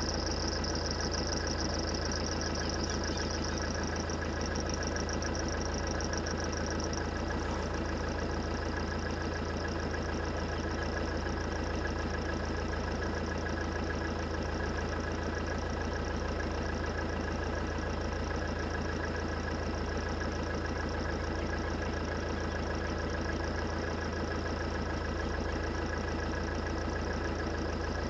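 Motor vehicle engine idling, a steady even drone with no change in speed. Faint high steady tones in the background fade out within the first several seconds.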